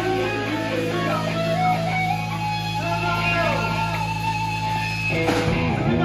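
Live rock band playing, with electric guitar lead lines over bass and drums. About five seconds in, the held notes break off with a drum hit.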